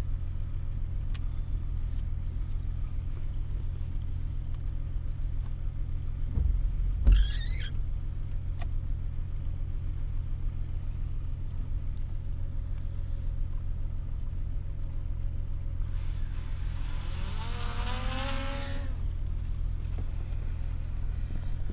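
4x4 truck's engine and drivetrain droning steadily, heard from inside the cab while driving a snowy backcountry road. A knock with a short squeak comes about seven seconds in, and a high whine falls in pitch for a couple of seconds near the end.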